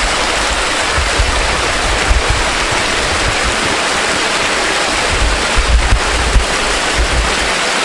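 Waterfall rushing, a loud steady roar of falling water, with irregular low rumbles.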